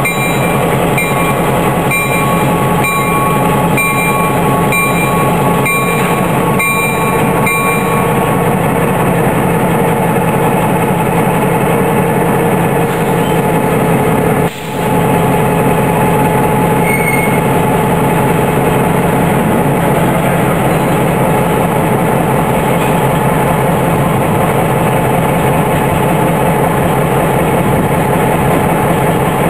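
Diesel locomotive engine running steadily as the turntable slowly swings it round, with a regular click a little faster than once a second through the first eight seconds. The sound briefly drops out about halfway through.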